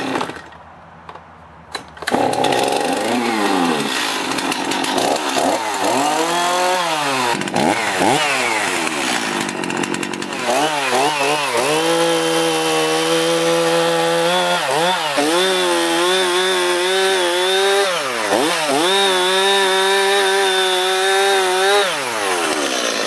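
Stihl two-stroke chainsaw starting up about two seconds in and being revved up and down a few times. It then runs at full throttle cutting through a log, its note dipping briefly between cuts, and shuts off near the end. This is a test run after an ignition module replacement, and the saw now runs with good spark.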